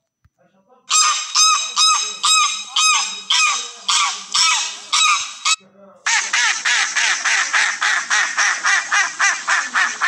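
Recorded domestic goose honks, a steady run of about two honks a second. After a short gap about six seconds in, a recording of a wild duck quacking follows, a fast series of about four quacks a second.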